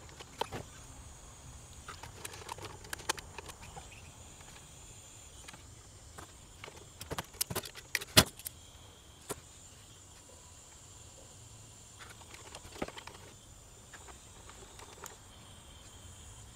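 Scattered light clicks and clatter of hands handling a plastic car taillight housing and small tools on a workbench, with a quick run of sharper clicks about seven to eight seconds in.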